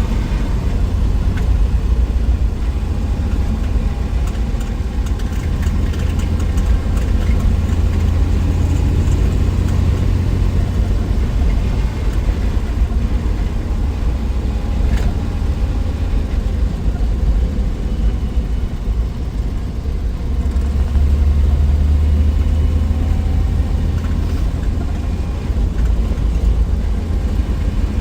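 1963 Willys Wagon's Tornado 230 overhead-cam straight-six running steadily on the move: a continuous low engine and road drone that swells slightly a little after two-thirds of the way through.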